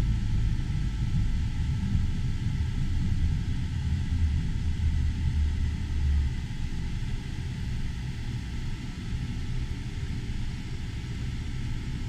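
Twin Mercury 200 outboard engines running down toward idle as the throttles are backed off, from about 1,050 to about 620 RPM. Their low rumble eases and drops about six seconds in.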